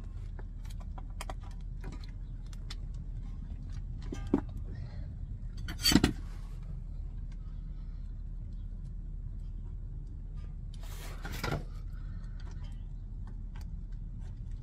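Small clicks and clinks of a hand tool against the steering rack and tie rod end of a 2001 Acura MDX during rack-and-pinion boot work. There is a knock about 4 seconds in, the loudest clatter about 6 seconds in, and a longer knock near 11 seconds, over a steady low rumble.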